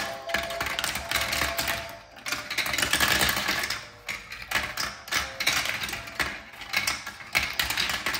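Plastic marbles clattering and rattling through a VTech Marble Rush plastic track set: several balls at once rolling around the spiral funnel and knocking down the chutes in a dense, continuous run of clicks.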